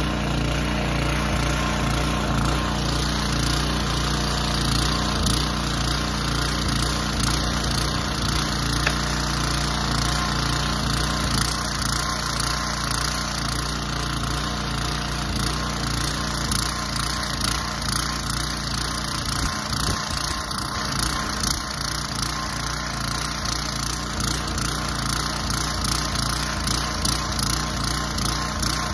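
Small engine running steadily at a constant speed, with light knocks scattered over it.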